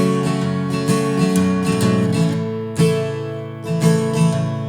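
Acoustic guitar strumming chords in a slow folk-country song, each strum ringing out before the next, with no singing.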